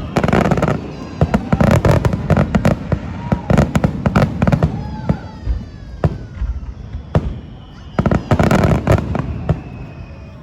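Fireworks finale with many shells bursting in rapid succession: a dense barrage of booms and crackling, easing off around the middle, then another heavy cluster of bursts near the end.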